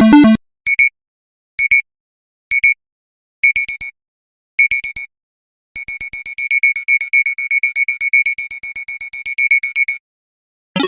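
Synthesized alarm-clock tone: a high electronic beep sounding about once a second, each burst a little longer than the last, then breaking into about four seconds of rapid continuous beeping before it stops. At the very start the tail of a lower, louder alarm melody cuts off.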